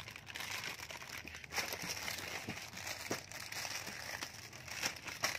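Clear plastic toy packaging crinkling and rustling as a child's hand handles bagged toy trucks, with many small irregular crackles.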